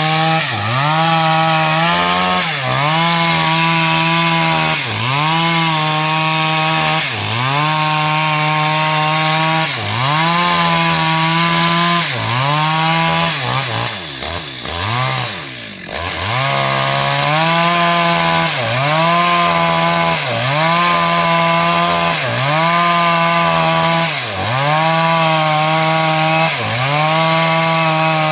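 Stihl MS 250 two-stroke chainsaw running at high revs. Its pitch sags and recovers about every two seconds, with one longer, deeper drop about halfway through.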